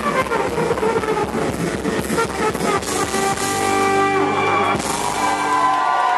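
Live band of double bass, acoustic guitar, trumpet and drums playing an upbeat number. About three seconds in the beat stops and the band holds long notes, as at the close of a song.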